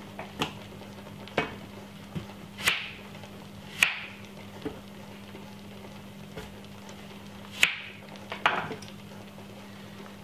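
Scattered sharp knocks and taps of food preparation: red onion pieces, hands and a knife against a metal roasting tray and a wooden chopping board, about ten in all, with a steady low hum underneath.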